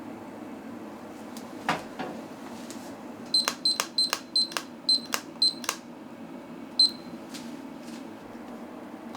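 Buttons on an electronic kitchen appliance or timer being pressed, each press giving a short high beep with a click: a quick run of about eight beeps, then one more about a second later, over a steady low hum.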